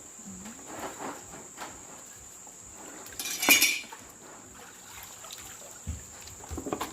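Pots, dishes and utensils clattering lightly, with one louder metallic clatter about three and a half seconds in, over a steady high-pitched hum.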